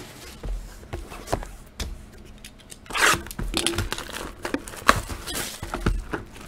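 Plastic shrink wrap being torn off a cardboard trading-card box and crumpled by hand, with a few sharp taps of the box being handled. The crinkling starts about three seconds in.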